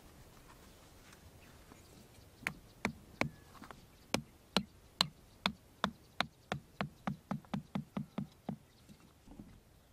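Small hammer tapping a wooden stake into the ground: about twenty sharp knocks that come quicker toward the end, then stop.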